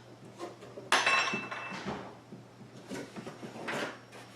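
Reloading-kit parts being handled and set down: a sharp clink about a second in that rings briefly, then a few lighter knocks and rustles.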